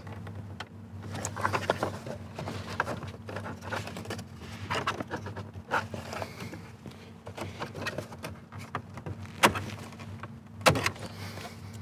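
Plastic dash trim being pried loose with a plastic trim tool: rubbing, scraping and small clicks of plastic, with two louder sharp snaps in the last third as retaining clips let go, over a steady low hum.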